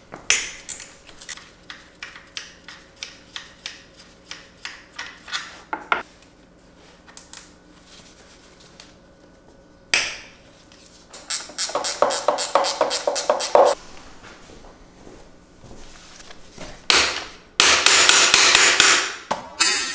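Hammer blows on metal, knocking a drive shaft out of a car's manual transaxle by force rather than the proper way. There is a run of separate strikes, about two a second, for the first six seconds, then a quick burst of rapid hammering around halfway and a louder, denser run near the end.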